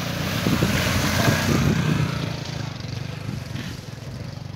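Wind buffeting the microphone over rushing muddy floodwater, a steady noise with low irregular rumbles, loudest for the first two seconds and then easing off.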